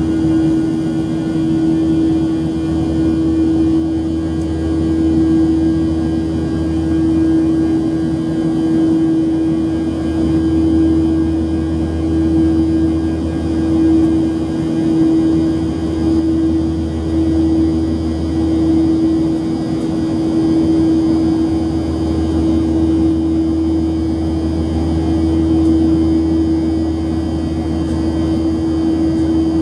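Steady in-flight cabin drone of a Boeing 737-700, heard from a window seat beside its CFM56-7B turbofan engine: a low rumble with a constant hum over airflow noise.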